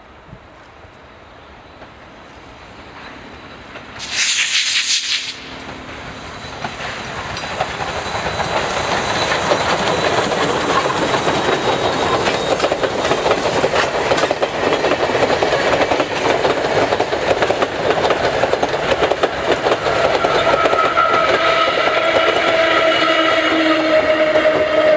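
A steam locomotive whistle sounds one short, loud blast about four seconds in. Then the steam train of old passenger coaches approaches and runs past, the clatter of its wheels over the rail joints swelling and staying loud. A steady hum of several tones joins near the end.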